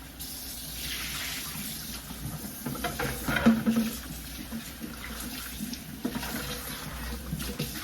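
Tap water running steadily into a sink as raw meat is rinsed in a bowl, with a few light knocks of handling.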